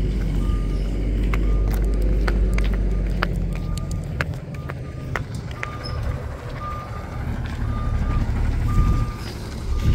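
Garbage truck's backup alarm beeping, short high beeps about once a second, over the low rumble of its natural-gas engine.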